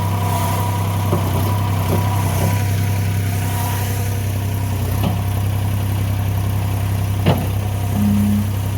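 International 4140 skid-steer loader's diesel engine running steadily at idle, with a single sharp knock about seven seconds in and a short steady higher tone near the end.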